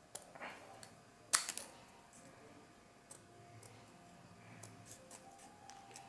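Scissors snipping through a small piece of paper: a few faint snips and clicks, the loudest about a second in.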